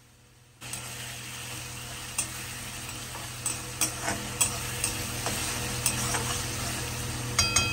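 Chopped onions and tomatoes sizzling in hot oil in a kadai while a metal spatula stirs them, clicking and scraping against the pan at uneven intervals. The sizzle starts suddenly about half a second in, and near the end the spatula knocks the pan with a brief metallic ring.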